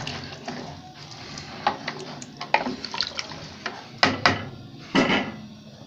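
A metal spoon stirring broth in a metal cooking pot, knocking against the pot several times, with liquid sloshing.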